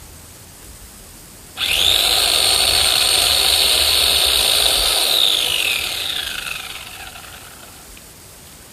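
Electric chainsaw switched on about a second and a half in, running at a steady high-pitched whine for about three and a half seconds, then released and winding down, its pitch falling as it fades.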